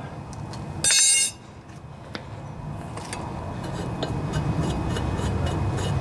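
A metal hand tool clanks down with a brief ringing about a second in, then a low rumble grows steadily louder.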